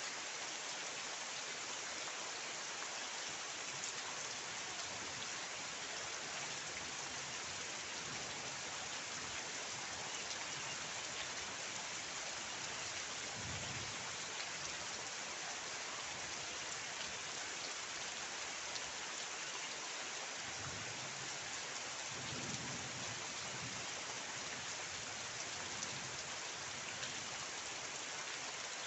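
Steady rain falling, an even hiss of drops throughout, with a few low rumbles about halfway through and again later on.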